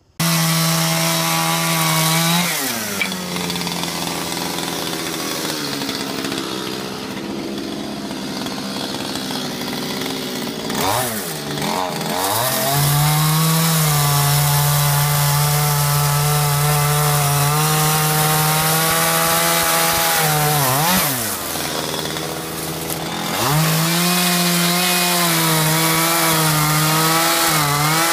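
Two-stroke chainsaw running hard as its bar cuts into a block of wood to rough out a carved statue. The engine note drops and climbs back up three times as the throttle is eased and opened again.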